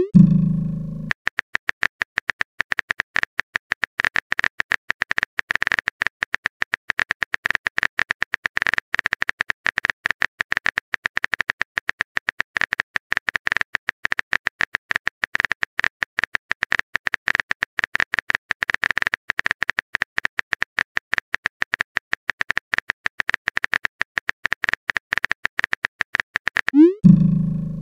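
Typing sound effect of a phone chat: a steady run of rapid, even keyboard clicks. A short rising pop with a low thump comes at the start and again about a second before the end, like a message alert.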